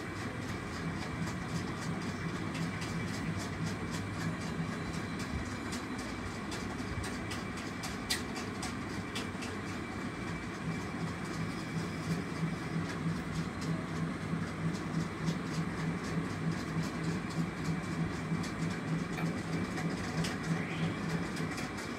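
Pot of chicken and potato curry cooking on a stove: a steady rumbling noise with a low hum, and from about halfway in a regular soft pulsing.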